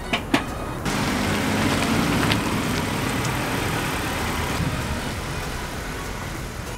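A couple of sharp knocks at the start as the Honda Accord sedan's door shuts. About a second in, its engine comes on with a sudden rise, and the car pulls out and drives away, fading toward the end.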